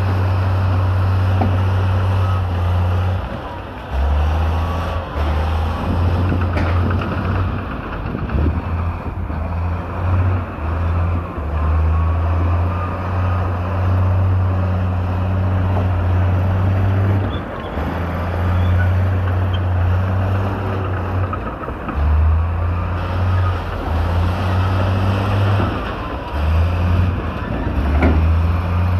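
Diesel engines of Trago 25.5-ton dump trucks running while they tip their raised beds to unload rock and dirt, a low rumble that swells and drops off.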